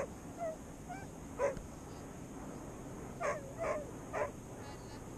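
A Labrador retriever giving a string of short, high yips and barks, some bending in pitch like whines, with three close together about three to four seconds in.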